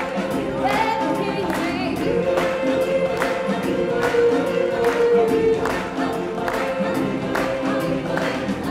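Live stage-show music: a choir singing sustained notes over a steady beat.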